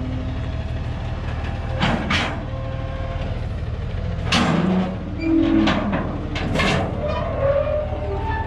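A delivery truck's engine running steadily with a low hum, with several short sharp bangs and hisses over it while a scissor lift is unloaded.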